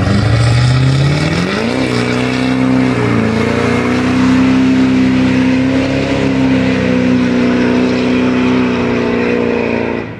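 Duramax turbo-diesel V8 pickup doing a burnout: the engine revs climb over the first two seconds, then are held high and steady with a brief dip about three seconds in while the rear tires spin and smoke on the asphalt, and the engine drops off sharply near the end.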